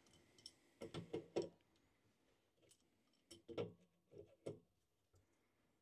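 Faint clicks and light knocks of an adjustable wrench and plastic pump fittings being handled, in a few short clusters.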